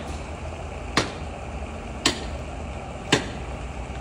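Hard blows of a hand tool striking a car's wheel: three sharp strikes about a second apart, each with a short ring-out.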